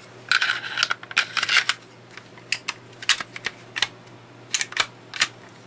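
Freshly oiled semi-automatic pistol being put back together: a short metallic scrape as the slide goes onto the frame rails, then a string of sharp metal clicks as the slide and parts are worked into place.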